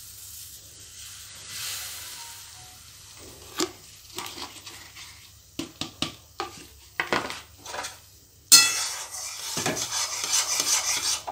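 Rice flour poured into boiling water in a metal kadai with a faint hiss, then a metal spoon knocking lightly against the pan a few times. From about eight and a half seconds in, steady, louder scraping as the spoon stirs the flour and water into a stiff dough against the pan's sides.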